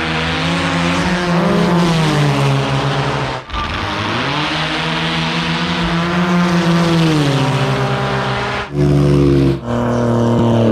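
Drag-racing snowmobile engines at full throttle down a snow track. Each run's engine note climbs quickly, holds at a steady high pitch, then drops away. The sound cuts off abruptly and restarts several times.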